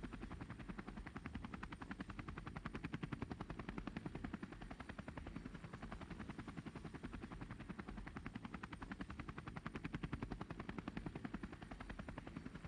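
Rotor blades beating in a rapid, steady pulse.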